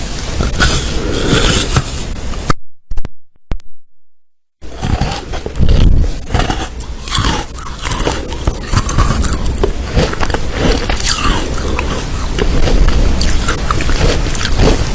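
Crunchy biting and chewing, a dense run of crackles and sharp crunches. It breaks off about two and a half seconds in, goes almost silent apart from a couple of brief sounds, and starts again after about two seconds.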